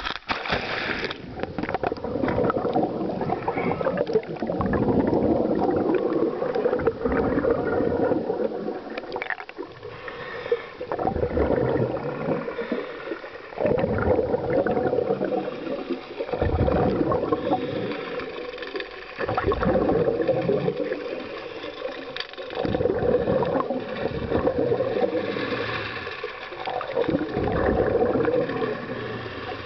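Scuba regulator exhalations heard underwater: surges of rushing, gurgling bubbles every few seconds, with quieter gaps between breaths. The water entry splashes about a second in.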